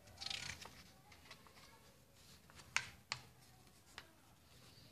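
Paper page of a picture book being turned: a brief soft swish, then a few faint clicks.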